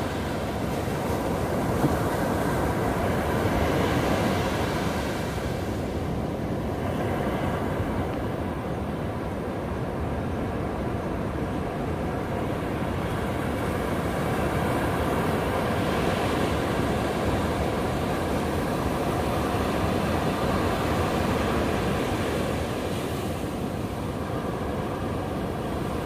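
Ocean surf breaking offshore and washing up a flat sandy beach: a steady deep rush of waves that swells and eases slightly every several seconds.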